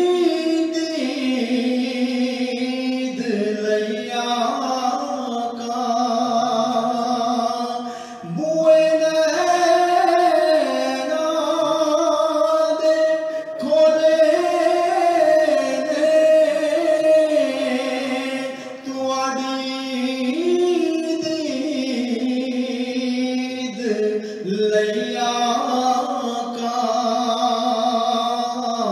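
A man singing a naat solo, holding long notes that slide and step between pitches, with short breaks between phrases.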